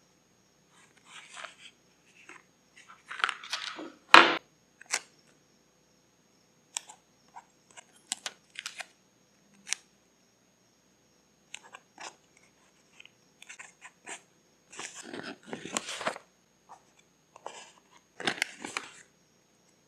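Paper crinkling and rustling in short, irregular bursts as journal pages and craft paper are handled, with a sharp tap a little after four seconds.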